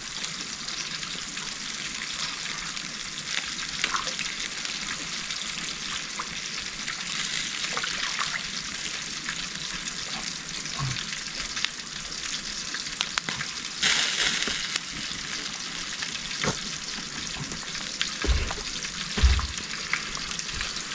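Fish frying in hot oil: a steady sizzle with small crackles, with a louder surge of sizzling about two-thirds of the way through and a couple of low thumps near the end.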